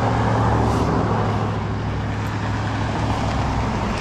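Road traffic running steadily, a vehicle passing by with a low engine rumble, loudest about half a second in.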